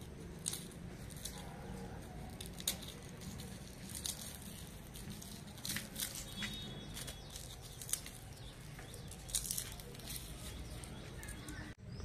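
Dry, papery garlic skins crackling and cloves snapping apart as garlic bulbs are broken up by hand: scattered short, crisp crackles over a faint steady low background noise.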